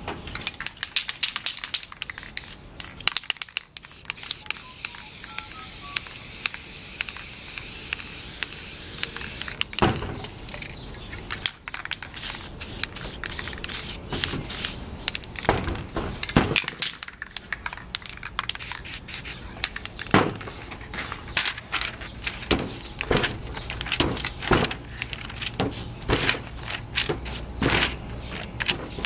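Aerosol spray-paint cans hissing onto poster board, one long spray and then shorter bursts, with many sharp clicks and rattles in between. Crinkling near the end as a crumpled sheet is pressed into the wet paint.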